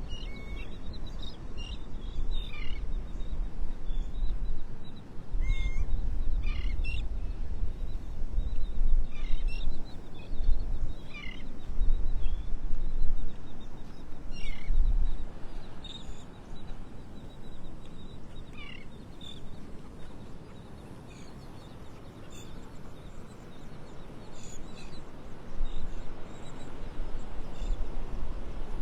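A group of birds calling, short separate calls, many sliding downward in pitch, scattered throughout, over a low rumbling background that swells several times and eases in the second half.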